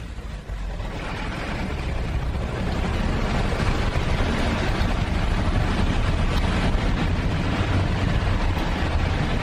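Wind rumbling on a handheld camera's microphone over street traffic noise, a steady low rumble that grows louder over the first few seconds.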